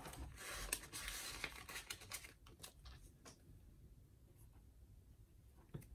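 Paper money rustling as bills are handled and tucked into a budget-binder pocket, for about the first three seconds. Then only faint taps and scratches of a marker writing on notebook paper.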